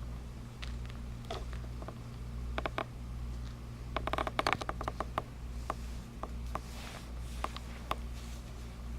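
Scattered light clicks and scratches, with a quick rattling run of clicks about four seconds in, over a steady low electrical hum.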